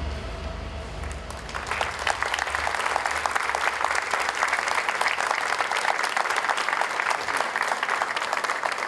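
An audience applauding, starting about one and a half seconds in as a low rumble from the end of the screened video fades away.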